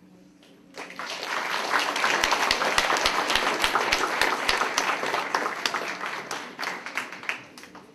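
Audience applauding, starting about a second in and dying away near the end, with a run of sharper, louder single claps in the middle.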